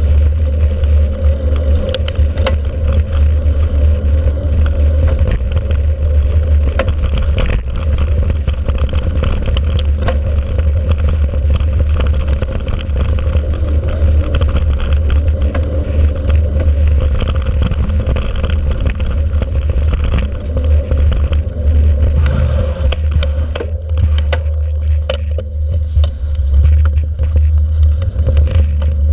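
Mountain bike riding over a sandy dirt track, heard through a handlebar-mounted camera: a heavy low rumble of wind and vibration on the microphone, with the tyres crunching and scraping over the ground and scattered clicks and rattles from the bike. The higher crunching thins out near the end.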